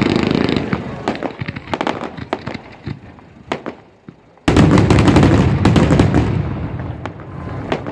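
Aerial fireworks bursting: a dense rush of reports and crackling thins out into scattered sharp pops. About halfway through, a sudden loud new salvo breaks in and dies away again into crackles.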